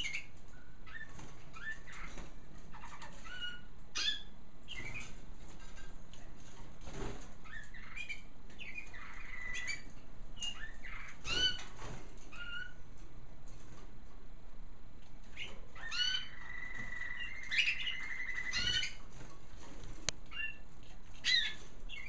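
Caged canaries calling with short upward-sweeping chirps scattered throughout, with two rapid trilled phrases, one about nine seconds in and a longer one about sixteen seconds in. Wings flutter now and then as the birds hop between perches.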